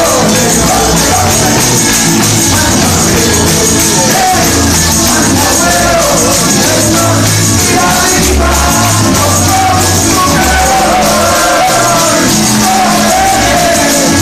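A man singing a Spanish worship chorus (coro) into a handheld microphone, loud through the church's loudspeakers over a band with a moving bass line, with the congregation clapping along.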